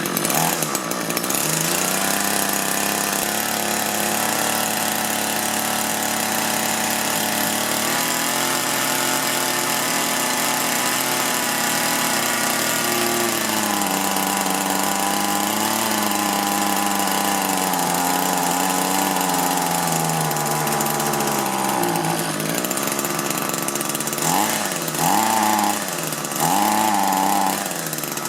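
Two-stroke engine of an Echo hedge trimmer running while its carburetor is adjusted, the speed wandering up and down. Near the end it is revved several times in quick succession, the revs sagging before they pick up each time: it will not throttle up properly, and the adjustment does not cure it.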